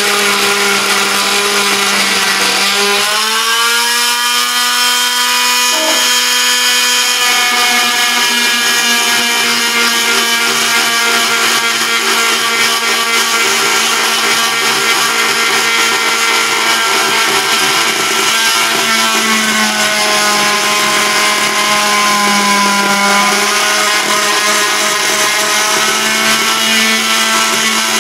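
Oscillating multi-tool running continuously with its blade cutting into a round slice of log: a steady motor whine whose pitch steps up slightly about three seconds in and sags a little under load later on.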